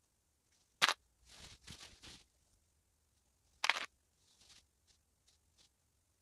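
Satin fabric rustling as it is handled, with two sharp clicks about three seconds apart from plastic sewing clips being snapped onto the layered skirt.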